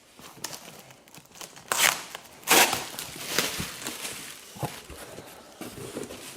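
Cardboard box and packaging being opened and handled: irregular rustling and scraping with a few sharp clicks, the loudest stretch about two and a half seconds in.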